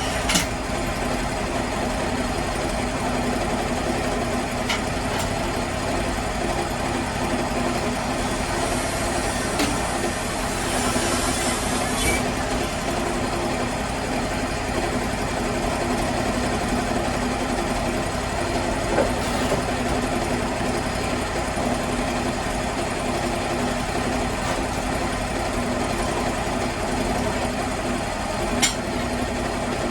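Sawmill engine running steadily, with a few short sharp knocks over it.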